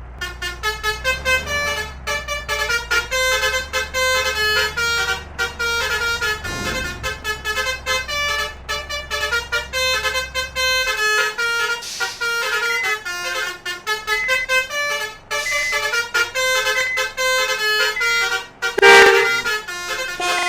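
Basuri multi-trumpet 'telolet' horn playing a fast tune of short notes, over a low steady hum that stops about halfway through. A louder blast comes near the end.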